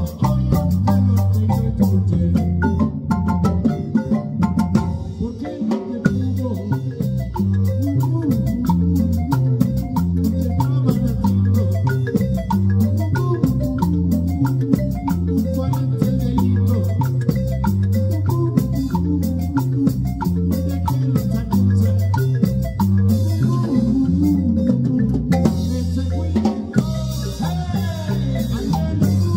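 Live band music led by a wooden marimba played with mallets, over an electric bass line and drums keeping a steady beat.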